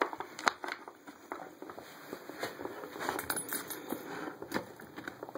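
A dog working at a wooden treat puzzle, with irregular light clicks and knocks of the wooden pieces and scuffling. There are a few sharper knocks, about half a second in, about two and a half seconds in and about four and a half seconds in.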